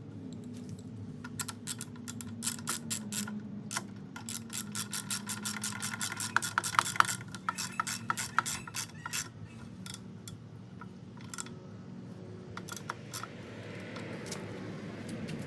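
Rapid ratcheting clicks in bursts, thickest in the first two-thirds and trailing off with a few near the end, as the turn signals are fastened in place.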